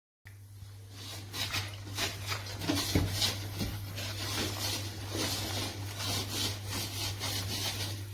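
Rhythmic rubbing or scraping, about two strokes a second, over a steady low hum.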